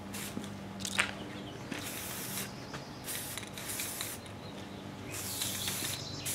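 Aerosol spray-paint can hissing in several short bursts, one after another, as paint is sprayed onto sheet-metal brackets.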